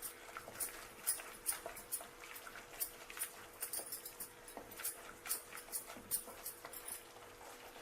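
Onion-tomato spice masala frying in oil in a pan, crackling irregularly, with a spatula stirring and scraping it to keep it from burning. The masala is being fried until the oil separates from it.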